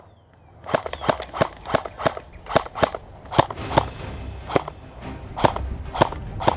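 Airsoft guns firing: a quick run of sharp pops about five a second, then louder single shots at uneven intervals.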